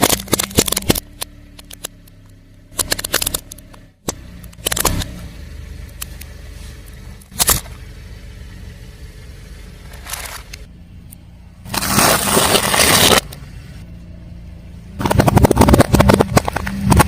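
A car tyre rolling over and crushing crunchy objects: several clusters of sharp cracks and crackles, the loudest near the end, over the low steady running of the car's engine.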